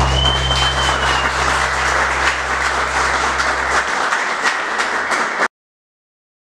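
Audience applauding at the end of an electric guitar performance, with a short high whistle in the first second and a low steady hum underneath that stops about four seconds in. The applause cuts off abruptly about five and a half seconds in.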